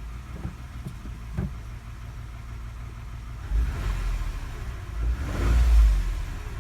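A 2009 Toyota Highlander's 3.5-litre V6 idling in park, then revved briefly twice, about 3.5 seconds in and again, longer and louder, about 5 seconds in. A slight knocking comes in as it revs, which the owner hopes is an exhaust leak or worn spark plugs.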